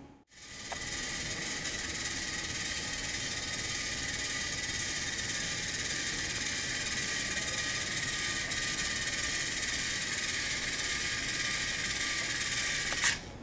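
Toy monster truck driving at constant speed, its small motor and gears whirring steadily with a faint even whine, cutting off with a click near the end.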